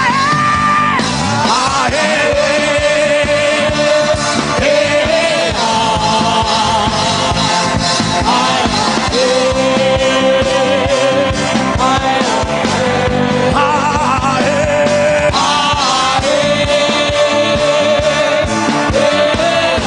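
Worship band music: long held melody notes with a slight waver over steady band accompaniment, an instrumental or wordless passage between sung lines.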